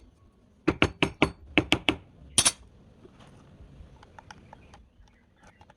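A quick run of about nine sharp metallic clinks, the last the loudest, followed by a few faint light ticks.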